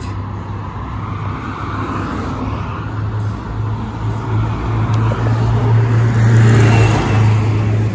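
ZiU-682G trolleybus drawing up to a stop: tyre and road noise swell as it nears, over a steady low hum. The sound is loudest as it comes alongside about six seconds in.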